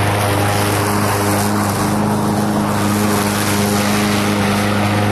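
Lawn mower engine running loud and steady at an even speed.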